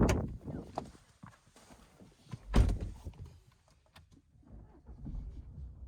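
Two heavy thuds about two and a half seconds apart, with softer knocks and rustling between: an animal bumping and rubbing against the body of a parked car.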